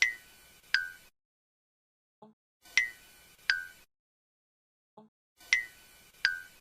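Cartoon eye-blink sound effect on a loop: each blink is a faint low blip followed by two short, bright pings about three-quarters of a second apart, the second lower than the first. It plays three times, every few seconds.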